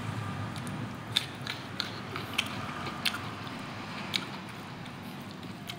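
Close-up chewing of a mouthful of rice and tree-bean seeds (zawngtah), with a few sharp crunchy clicks spaced irregularly, roughly one every half second to second.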